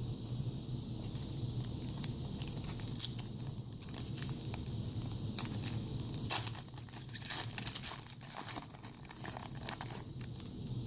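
Trading-card pack wrapper being torn open and crinkled, a run of crackling that starts about a second in and is loudest in the second half.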